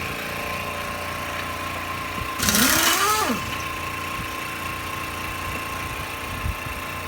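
A machine runs steadily, humming with a constant high whine. About two and a half seconds in, a loud, brief sound that rises and then falls in pitch cuts across it.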